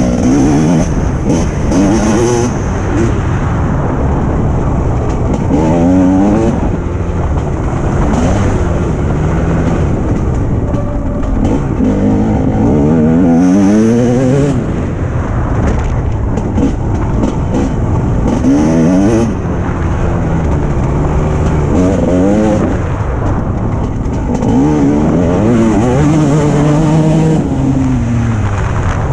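Motocross bike engine heard up close from a camera on the bike, revving up again and again as the rider accelerates and shifts gear, the pitch climbing and falling back every few seconds, over a steady rushing rumble.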